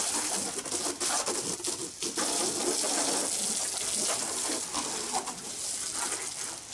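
Garden hose spray nozzle jetting water onto a car's body panels and windows: a steady hissing spray rinsing the car down before washing.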